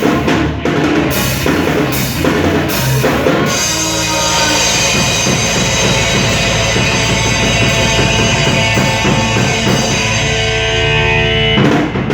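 Rock music with drums, loud and steady; the drumming gives way to held guitar chords about three and a half seconds in, with a brief break near the end.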